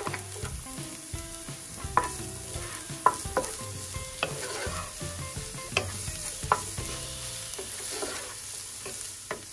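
Shredded carrots with onion, garlic and ginger stir-frying in hot oil in a frying pan, sizzling, while a wooden spatula stirs and scrapes them. The spatula knocks sharply against the pan every second or so, loudest about two and three seconds in.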